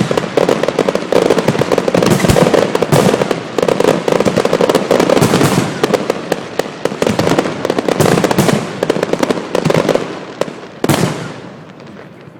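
Fireworks display: a dense barrage of crackling and rapid bangs that thins out near the end, with a single loud bang shortly before it closes.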